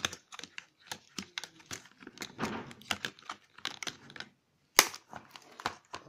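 Irregular clicks and knocks of 9-volt batteries and a clear plastic box being handled, with a short rustling stretch about two and a half seconds in and one sharp, louder click near five seconds in.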